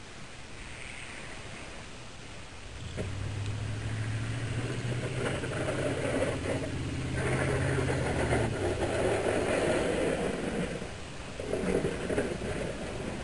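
1997 Chevy 2500 pickup driving in with a Boss straight-blade snow plow pushing snow, its engine running under load. It grows louder from about three seconds in and is loudest in the second half.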